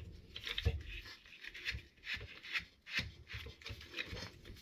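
Light, irregular clicks, taps and rubbing from hand-handling a clutch alignment tool: its plastic knob is being turned while the tool knocks against the clutch disc and pressure plate.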